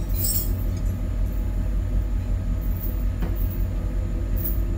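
Steady low rumble of an engine running at idle, with a few faint clicks.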